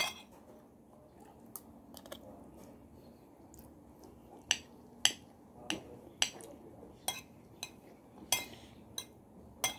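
Metal spoon and fork clinking against a plate while spaghetti is eaten: about a dozen short, sharp clinks at irregular intervals.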